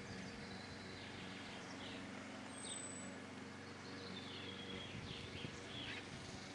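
Small wild birds chirping and calling, a handful of short high calls and one thin high whistle, over a steady low hum.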